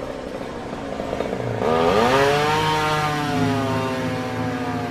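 Chainsaw running, revving up sharply about a second and a half in and held at high revs.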